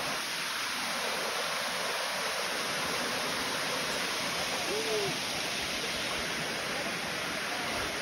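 Steady rush of water cascading down the Bua Thong waterfall's limestone rock.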